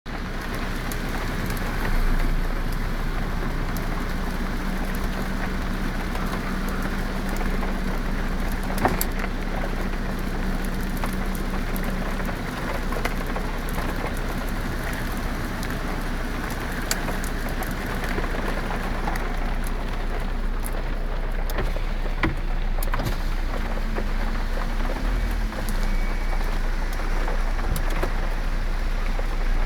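Heavy downpour: a dense, steady rush of rain on hard surfaces with scattered drop impacts. About four seconds in, a low steady hum starts and runs for about eight seconds.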